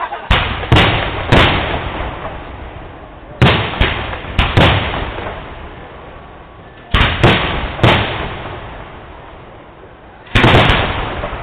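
Aerial firework shells bursting in clusters of two or three sharp bangs, a few seconds apart. Each bang is followed by a rolling rumble that slowly fades.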